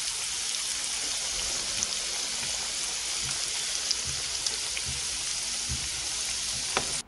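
Potato wedges deep-frying in hot oil: a steady sizzle dotted with small crackles.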